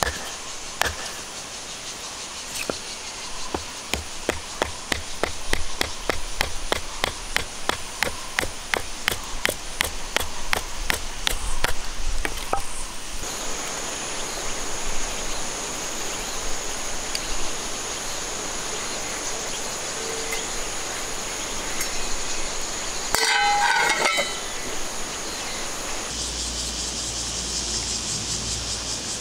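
A knife being batoned through firewood with a wooden stick: rapid sharp knocks, about three a second, for the first half. Then a hamburger patty and mushrooms sizzling in a cast-iron skillet, with a brief clatter and the sizzle growing louder near the end.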